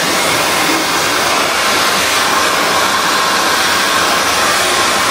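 Handheld hair dryer blowing steadily, an even rush of air.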